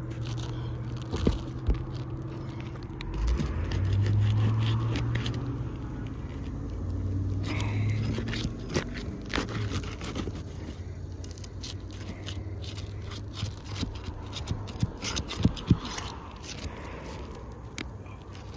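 Asphalt roof shingles being pried and scraped loose from their sealant strip, with crackling and sharp clicks. Under it is a low rumble that swells a few seconds in and again a little later.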